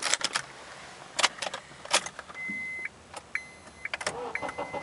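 Car keys jangling and clicking as the key goes into the ignition and is turned, followed about two and a half seconds in by a half-second high electronic beep from the dashboard, then several shorter beeps at the same pitch.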